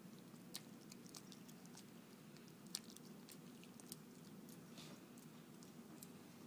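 Shorkie puppy gnawing a Greenie dental chew: faint, irregular clicks and crunches of teeth on the chew, over a low steady hum.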